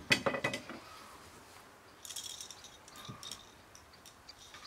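A short clatter of hard knocks at the start, then a few lighter, higher-pitched ticks about two and three seconds in, from hand work at a black plastic garden bucket.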